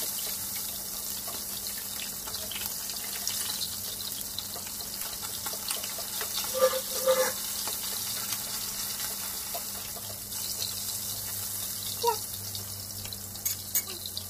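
Whole fish frying in hot oil in a wok, with a steady sizzling hiss. A metal ladle spooning the oil over the fish clinks lightly against the wok a few times, about halfway through and again near the end.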